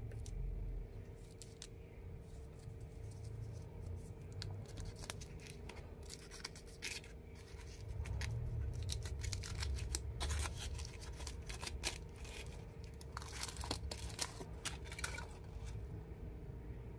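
Thin foil wrapper crinkling and crackling as it is peeled off a heart-shaped chocolate lollipop. The crackles thicken from about halfway and stop shortly before the end.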